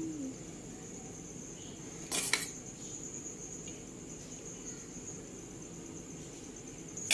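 A metal spoon spreading boiled rice in a metal cooking pot, with one short clatter of the spoon against the pot a little over two seconds in. A steady high-pitched tone runs underneath throughout.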